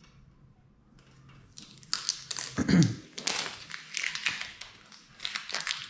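Vinyl stencil and its paper backing crinkling and rustling as they are handled and rubbed down by hand, starting about a second and a half in.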